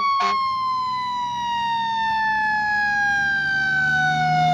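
Fire truck siren winding down: one long tone that falls slowly and steadily in pitch, with a click just after it begins.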